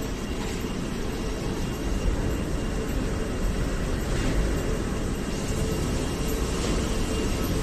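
Steady low rumble of airport background noise inside a glass-walled terminal corridor, with a faint steady hum running through it.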